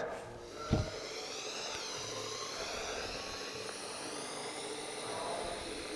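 A single thump about a second in, then the steady hiss of compressed air blowing through an electrostatic powder-coating gun as it sprays powder onto a steel plate.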